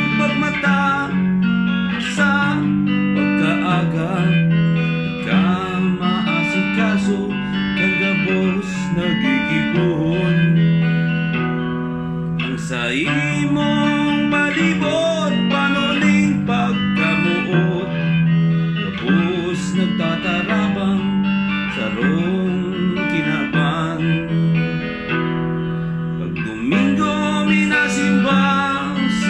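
Electric guitar playing a song over held low accompaniment notes, with a man singing along.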